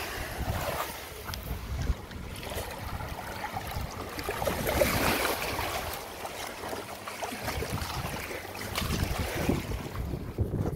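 Wind buffeting the microphone over small waves washing onto the sand, with a broad swell of surf noise near the middle.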